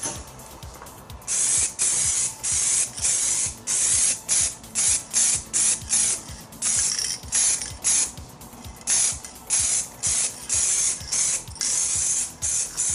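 Aerosol spray-paint can spraying in a run of short bursts, each under a second with brief gaps between, starting about a second in and pausing briefly near the eight-second mark.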